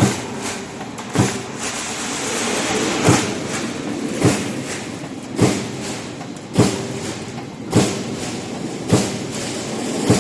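Roll forming machine for noise-barrier panels running: a steady mechanical rush with a sharp press stroke about every 1.2 seconds.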